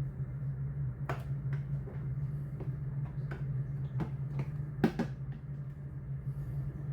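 Light clicks and knocks of the plastic dust container of a Tefal Compact Power XXL vacuum cleaner being handled and opened, about eight in all, the loudest a little before five seconds in, over a steady low hum.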